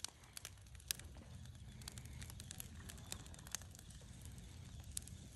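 Wood campfire crackling faintly, with irregular sharp pops as the logs burn.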